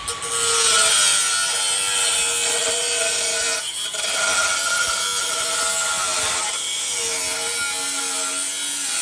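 DeWalt angle grinder cutting sheet steel: a loud, steady grinding hiss over the whine of the motor, with a brief let-up in the cut just before four seconds in.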